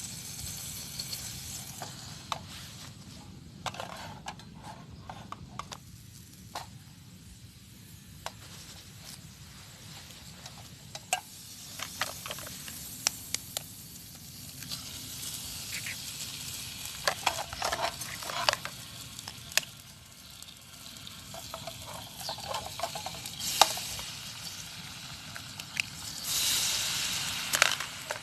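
Eggs frying in a pan over a camp fire: a steady sizzle that grows stronger in the second half and swells near the end. A utensil clinks and scrapes against the pan many times.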